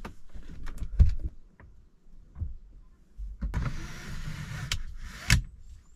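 Camper van window frame handled and its built-in blind pulled along its track: a few knocks, the loudest about a second in, then a sliding rasp of about two seconds that ends in two sharp clicks.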